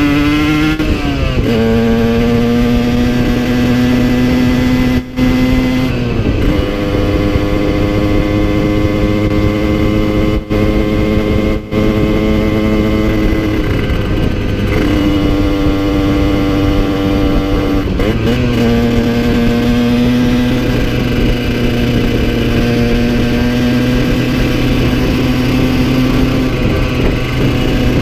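2010 Yamaha TZR50 two-stroke engine, bored out to 70cc with a Polini CP21 carb and Technigas exhaust, running under way as heard from the rider's seat. The note climbs briefly at the start, then holds steady pitches broken by several gear changes and a few short throttle lifts. The owner says its top end was worn out and well down on power at this point.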